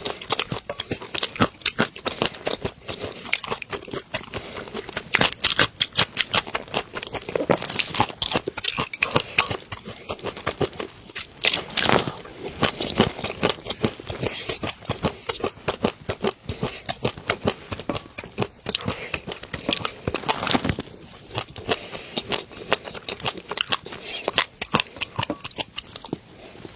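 Close-miked eating sounds: wet mouth smacks, slurps and chewing clicks as a soft custard-like dish is taken from a spoon, coming thick and fast with louder stretches now and then.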